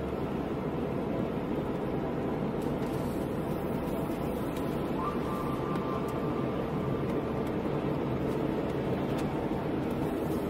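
Steady in-cabin driving noise from a car moving at road speed, with engine and tyres on a wet road.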